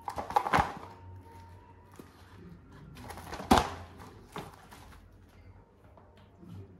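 A cardboard firework box being handled, with two short bursts of rustling and knocks, about half a second in and about three and a half seconds in, and a lighter tap a second later.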